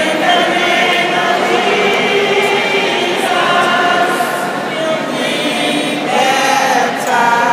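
A congregation singing a slow hymn together, holding long notes that change every second or two.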